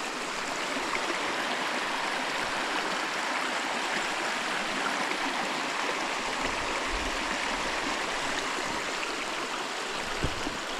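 Hill stream rushing and splashing between boulders, a steady, even rush of water.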